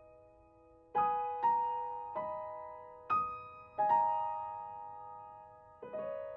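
Slow, gentle piano music. Single notes and chords are struck about every half second to a second, starting about a second in, and each rings out and fades.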